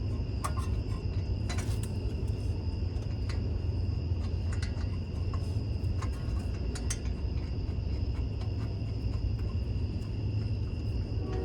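Crickets trilling steadily, two even high pitches, over a steady low rumble, with scattered light clicks and taps.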